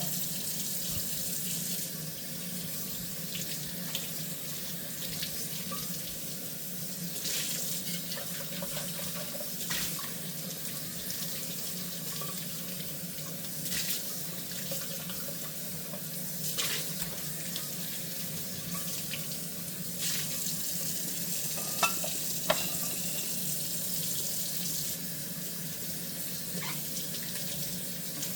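Kitchen tap running steadily into a sink while dishes are washed by hand, with scattered light knocks and clinks of dishware. Two sharp clinks come about three-quarters of the way through.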